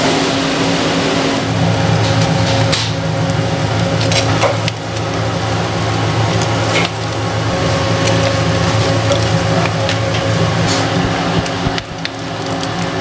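Several sharp clicks of metal tongs against a wire grill rack as fish fillets are turned, over a steady machine hum from the kitchen.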